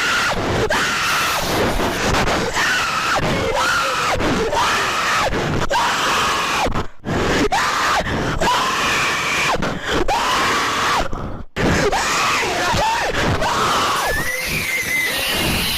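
Loud, screaming-like voices wailing with gliding, wavering pitch as part of a mock emergency alert soundtrack. There are short breaks about seven and eleven seconds in.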